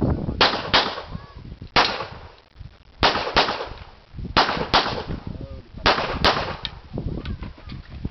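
Handgun shots fired mostly in quick pairs: about nine shots, with short pauses between the pairs.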